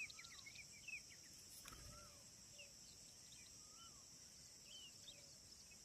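Faint outdoor ambience of a steady high insect drone with birds chirping: a quick run of short chirps in the first second, then scattered chirps and a short rising-and-falling call repeating about every two seconds.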